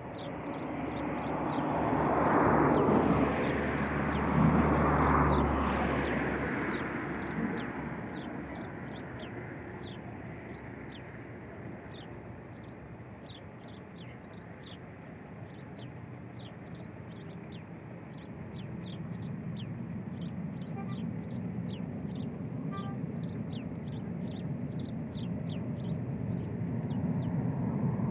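Distant Ryanair Boeing 737-800 jet on landing approach, its CFM56 engines a low rumble that grows steadily louder over the last ten seconds. Short high bird chirps repeat throughout, and a louder rushing noise swells and fades over the first seven seconds.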